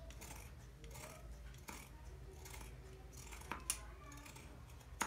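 Scissors cutting through folded cloth along a curve: quiet shearing of the fabric with a few sharp clicks as the blades close.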